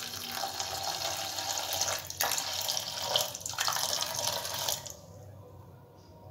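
Water being poured into a stainless-steel bowl of dry flattened rice (poha): a steady splashing pour with a short break about two seconds in, stopping near the end.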